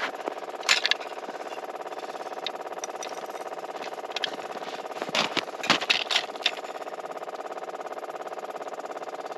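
A small engine idling at a steady speed, with a fast even pulse. Short sharp clicks and knocks sit over it about a second in and again in a cluster between five and six and a half seconds.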